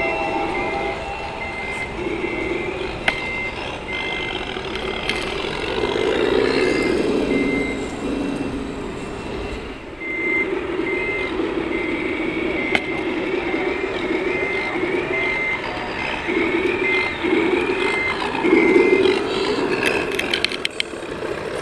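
Reversing beeper from a radio-controlled model truck's sound module, beeping steadily about twice a second, over model truck engine sound. The beeping stops for several seconds in the middle, then resumes.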